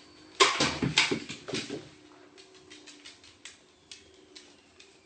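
Dachshund barking three or four times in quick succession, then light ticks and taps on the wooden floor.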